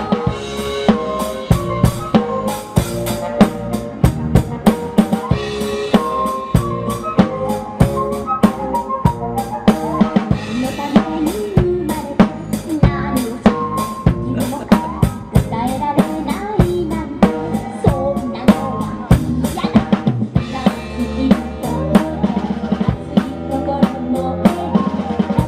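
Live band music driven by a drum kit played hard, with kick, snare and cymbal hits coming several times a second under a melody.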